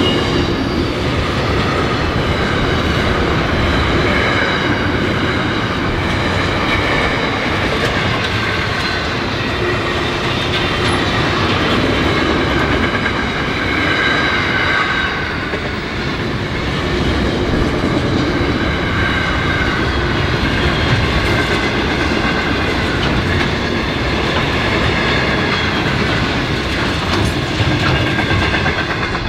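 Freight train of container wagons rolling past close by, a steady rumble and clatter of wheels on the rails. The sound drops away near the end as the last wagon passes.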